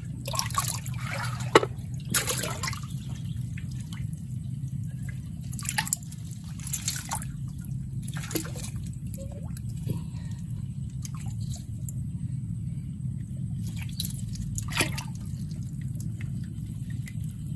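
Shallow muddy paddy water splashing and dripping at irregular moments as hands grope through it for freshwater clams, over a steady low hum.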